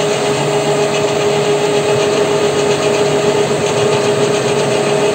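WM210V benchtop metal lathe running with a steady whine from its drive and gear train while its power feed draws a cutter along a spline groove in a steel half-shaft.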